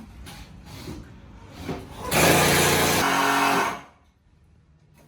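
A small electric power tool whirs for nearly two seconds, then stops. Before it come light knocks and handling sounds.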